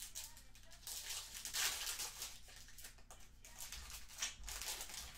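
Foil wrapper of a Panini Mosaic football card pack being torn open and crinkled by hand, in a series of rustles, the loudest about one and a half to two seconds in.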